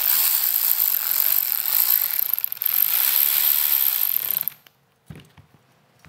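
Cordless electric ratchet running for about four and a half seconds, with a short dip partway, as it drives a T25 Torx bolt into a motorcycle handlebar switch housing, snugging it without fully tightening; then it stops sharply.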